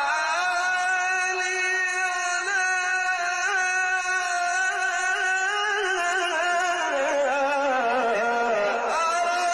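A man's voice reciting the Quran in melodic tajweed style, holding long drawn-out notes. About six seconds in the pitch slides slowly downward, then jumps back up near the end.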